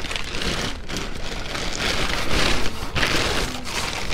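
Rustling and crinkling of plastic trash bags and loose items being rummaged through, with a few sharp clicks and knocks among them.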